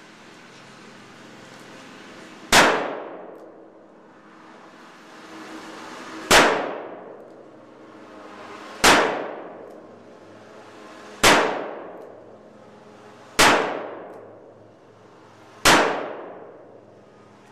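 Smith & Wesson Model 10 .38 Special revolver fired six times, one shot every two to four seconds, emptying its six-round cylinder. Each shot is a sharp crack with a ringing echo that fades over about a second under the range's metal roof.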